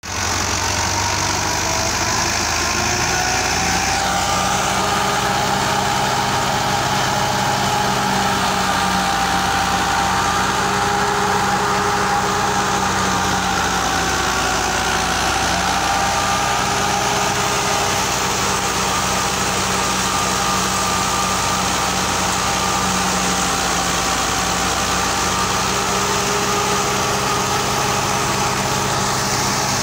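Fiat 640 tractor's diesel engine running steadily under load, driving a thresher through its PTO shaft, with a wavering high whine over the engine.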